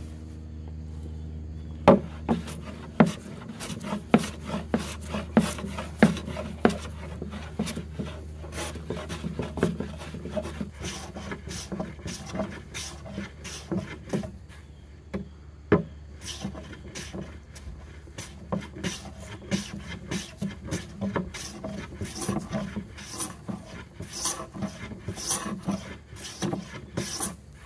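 No. 5 jack bench plane taking repeated light strokes along a wooden board, its sharp, slightly cambered iron shaving the wood; the strokes begin about two seconds in and follow quickly, roughly two a second.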